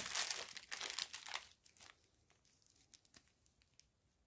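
Clear plastic zip bags of diamond painting drills crinkling and rustling as they are handled, with a sharp crackle at the start; the rustling stops about a second and a half in, leaving near silence with a few faint ticks.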